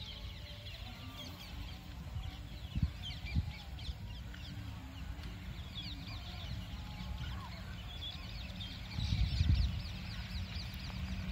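Many small birds chirping, with short falling high calls in quick succession, over a steady low rumble. There are two brief thumps around three seconds in, and the rumble swells louder about nine seconds in.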